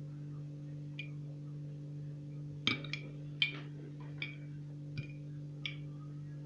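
A metal teaspoon stirring in a small glass, clinking against the side about seven times at irregular intervals. A steady low hum runs under it.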